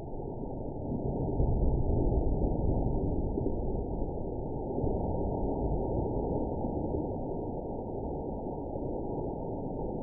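Liquid nitrogen flash-boiling as it meets boiling water, heard slowed down as a deep, rushing noise that swells about a second in and then slowly dies away.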